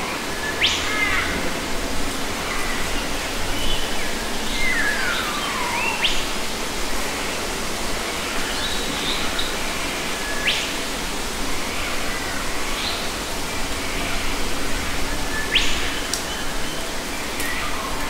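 Several wild birds calling and chirping over a steady background hiss, with a sharp rising call every few seconds and a long falling whistle about five seconds in.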